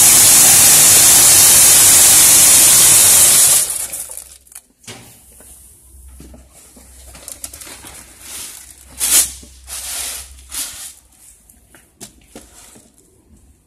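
Loud, steady hiss of compressed air from the coffee-bean color sorter, cutting off about four seconds in. Then the machine's low hum, with scattered short clicks and rustles from the plastic bins and beans.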